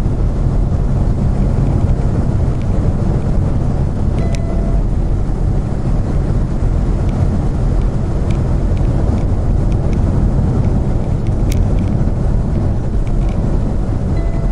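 Steady engine and road noise of a vehicle driving down a mountain highway grade, with a few faint ticks.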